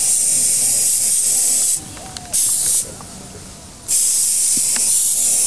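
Aerosol spray can hissing as it sprays onto a wound, in three bursts: a long one that stops a little under two seconds in, a short half-second one, and another long one starting about four seconds in.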